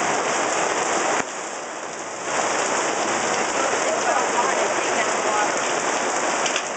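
Heavy rain falling steadily on the fabric roof of a pop-up canopy, a dense even hiss that eases briefly for about a second near the start.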